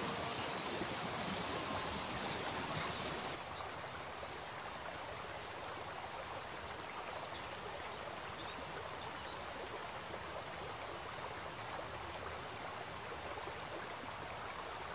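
A steady, high-pitched insect trill over a soft outdoor hiss. It weakens briefly about four seconds in and fades near the end.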